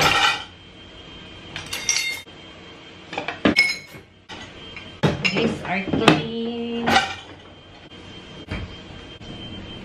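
Dishes being handled at an open dishwasher: glass tumblers and a glass pot lid clinking and knocking against the rack and door, a few separate knocks with brief ringing, busiest about five to seven seconds in.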